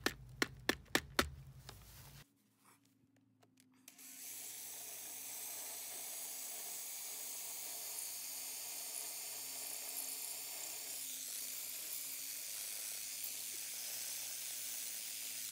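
About six sharp clicks in the first second or so, then, from about four seconds in, a cordless drill with a masonry bit boring steadily into a stucco-finished concrete block wall, a continuous hiss-like noise.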